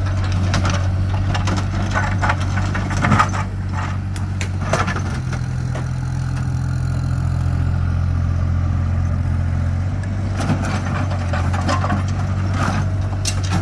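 A heavy machine's engine running steadily at a low, even pitch, with scattered short knocks, the loudest about three seconds in.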